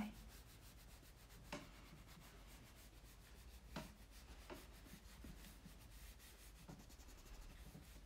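Faint rubbing of a rubber eraser back and forth on drawing paper, lifting graphite out of a pencil drawing to make highlights, with a few soft taps.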